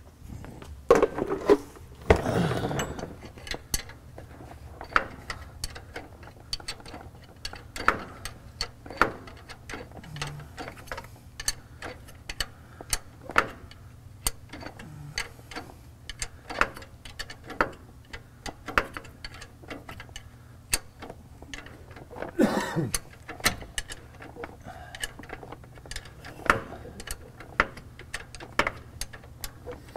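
Ratcheting wrench clicking in short, uneven strokes as an 18 mm track bar bolt is tightened. A louder metal clatter comes about two seconds in and again past twenty seconds.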